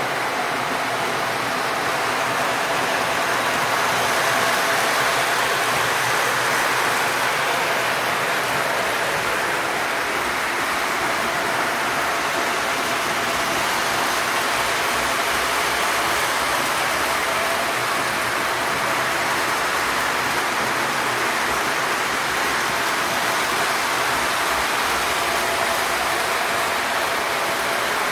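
O scale model train running on the layout's track: a steady rolling rush with a faint steady hum underneath, unbroken throughout.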